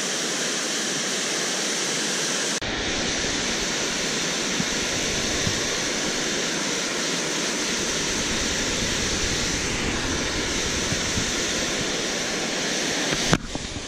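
Steady rush of water pouring over a low dam's spillway, deepening into a fuller rumble about two and a half seconds in. A sharp click near the end.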